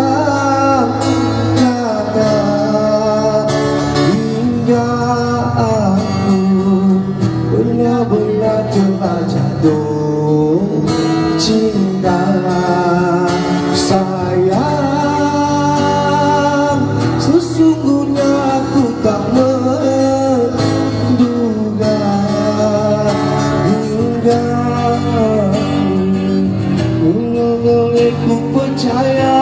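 Live amplified band performance: a man sings a Malay pop song into a microphone over guitar and a backing band, heard through the stage loudspeakers.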